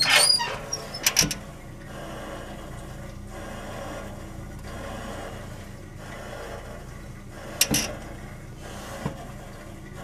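Vintage Crosley Shelvador refrigerator's compressor running with a steady low hum, started by an external start device that bypasses its original hot-wire relay. Sharp knocks and rattles of handling come at the start, about a second in, and once more near the end.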